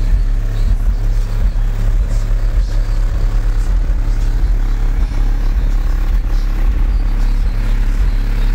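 Car-audio subwoofers in a small truck, driven by a rack of VFL amplifiers, playing deep bass at very high volume: a steady, heavy low rumble whose notes shift in pitch.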